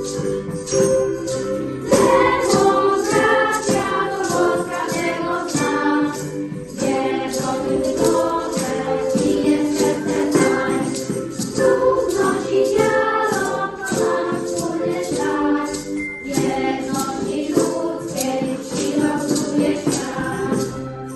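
A song: a group of voices singing over music with a steady beat, the voices coming in about two seconds in.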